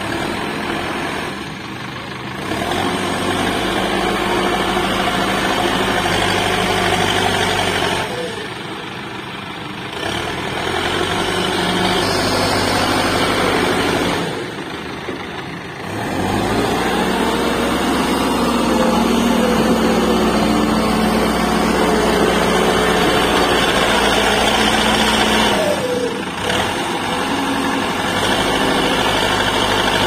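Diesel engine of a Bull backhoe loader working in mud, running hard under load. It eases off briefly several times and climbs back up in pitch.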